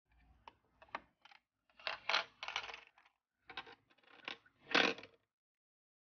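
Tweezers and miniature plastic toy pieces clicking and clattering against plastic racks and trays. A few light taps come first, then short rattly clusters, the loudest near the end.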